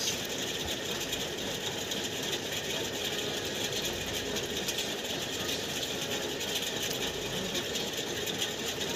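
Ceiling fan running overhead: a steady mechanical whirr with a fine rapid rattle and a continuous hiss.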